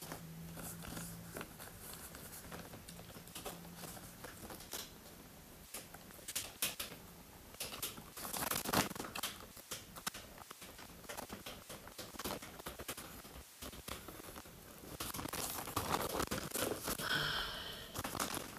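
Plastic mailer bag being torn open and crinkled by hand: scattered crackles and rips, busiest about halfway through and again over the last few seconds.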